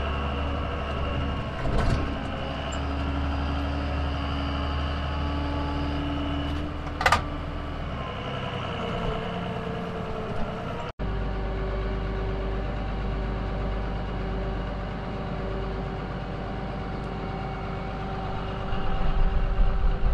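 Tractor engine running steadily, heard from inside the cab as the front-end loader pushes snow, with one sharp click about seven seconds in.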